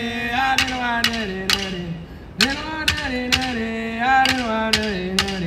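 Aboriginal song: a singer chants in long held phrases whose pitch slides down at the end of each, with a short break about two seconds in. Sharp clapstick strikes keep time underneath, two to three a second.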